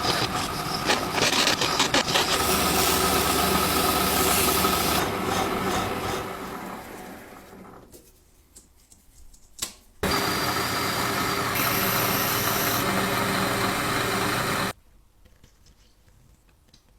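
Vintage film projector mechanism running with a steady motor sound that winds down over a couple of seconds to near quiet. After a single click it starts again abruptly, runs steadily for about five seconds, then cuts off suddenly.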